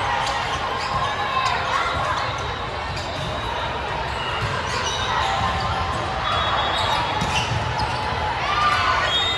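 Gym sounds of a youth volleyball rally: the ball being hit, sneakers squeaking on the court floor, and players and spectators calling out, all echoing in the hall.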